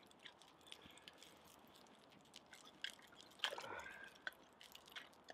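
Faint wood fire crackling, with scattered small pops and snaps from the burning sticks. About three and a half seconds in, a brief louder sound that falls in pitch.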